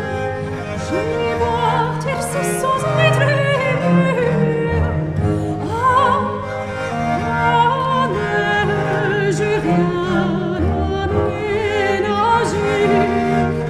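A soprano sings a French Baroque air with vibrato, accompanied by a bowed viola da gamba playing a low bass line.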